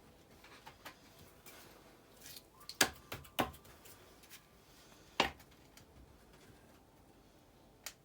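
Metal parts clinking and knocking as a motorcycle swing-arm axle is wiggled through the swing arm and frame: four sharp clinks with quiet handling noise between them, the loudest about three seconds in.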